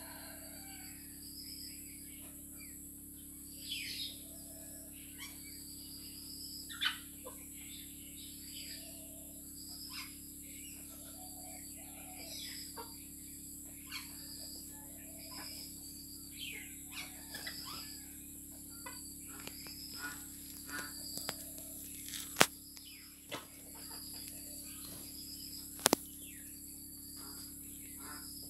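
A small flock of chickens feeding, with soft clucks and short high chirps about once a second, and scattered light ticks as they peck at grain on dirt. Two sharp clicks stand out, about 22 and 26 seconds in.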